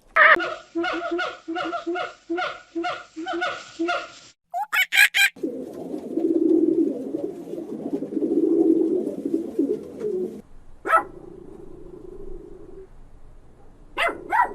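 Birds calling: a fast run of about a dozen repeated pitched calls over the first four seconds, a few short sharp calls, then about five seconds of a low continuous sound, with single sharp calls later on.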